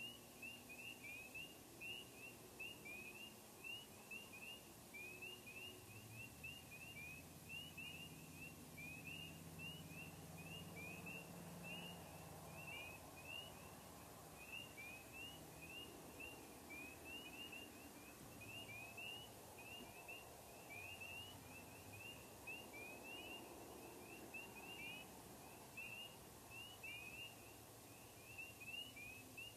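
A faint night chorus of spring peepers: many short, rising peeps overlapping, several each second, with no break. A faint low drone comes in about six seconds in and fades out past the middle.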